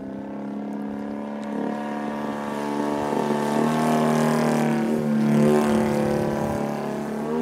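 Engine of a 37% scale Ultimate aerobatic biplane RC model in flight. Its pitch wavers up and down as it manoeuvres, and it grows louder toward a peak about five seconds in, then eases off slightly.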